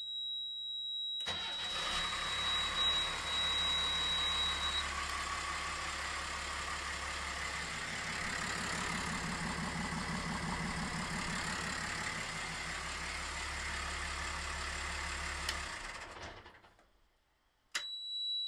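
A high, steady warning buzzer from the helm panel, then a Cummins 5.9 12-valve six-cylinder turbo diesel inboard starts about a second in and runs steadily; the buzzer stops a few seconds after the engine catches. Near the end the engine is shut off and runs down, and after a click the buzzer sounds again briefly.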